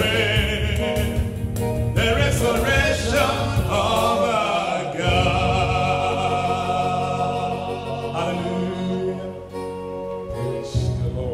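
A man singing a gospel song into a microphone over instrumental backing, holding long notes; his voice drops away about nine seconds in while the backing carries on.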